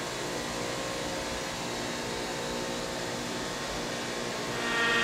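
Steady machinery hum with several fixed tones over a haze of noise, growing louder about four and a half seconds in.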